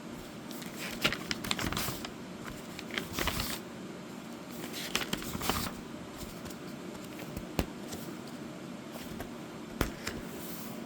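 Paper pages of a coloring book being handled and turned, irregular rustles and soft clicks every second or two.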